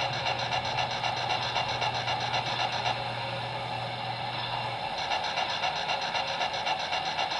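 Sound system of an MTH RailKing O-gauge 0-6-0 steam switcher model standing still, playing recorded standing sounds of a steam locomotive through the model's small speaker: a steady hiss with a fast, even pulsing that drops out for about two seconds midway, over a low hum that stops partway through.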